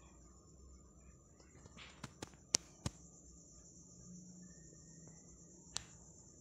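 Steady high-pitched trill of crickets. Four sharp clicks come about two to three seconds in, and one more near the end.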